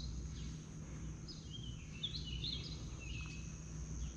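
Quiet lakeside ambience: a steady high-pitched insect drone, with a few short bird chirps in the middle, over a low steady hum.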